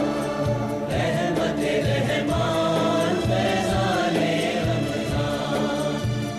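Programme opening music: a choir of voices singing sustained, chant-like lines over a steady low accompaniment.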